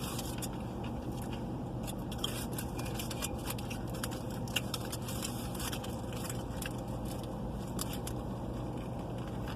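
Close-up eating of a burrito: chewing, with scattered small crackles and clicks from its wrapper, over a steady low hum of a car's cabin.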